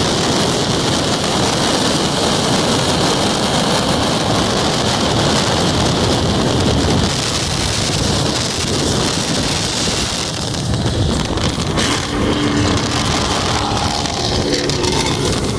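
Loud, steady wind rush buffeting a phone microphone held at the window of a car moving at highway speed, mixed with road and car noise.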